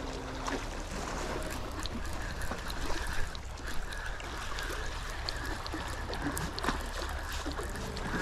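Sea water sloshing and trickling against shoreline rocks, with a few small clicks mixed in.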